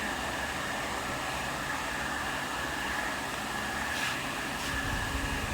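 Steady mechanical background hum with a faint, constant high whine. Two faint light taps come about four seconds in.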